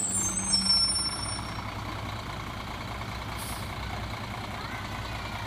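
Garbage truck's brakes squealing high for about the first second, then its diesel engine running with a steady low rumble.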